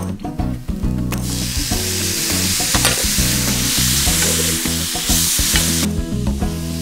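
Diced tomatoes sizzling in a hot stainless steel frying pan with sautéed onion and carrot as they are stirred with a wooden spoon. The sizzle starts about a second in and drops away sharply near the end. Background music with steady bass notes plays underneath.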